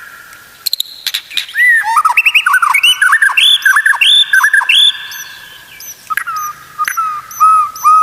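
White-rumped shama singing a varied song of loud, rich whistles, with a run of repeated rising notes in the middle, thin high chirps above it and a few sharp clicks.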